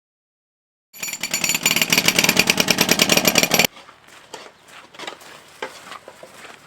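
A power tool running hard with a rapid, even pulsing chatter for under three seconds, cutting off suddenly, followed by quieter scattered light knocks.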